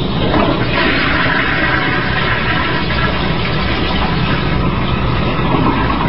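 Toilet flushing, set off by a cat pressing the handle: water rushes and swirls in the bowl, the rush swelling about half a second in and running on steadily.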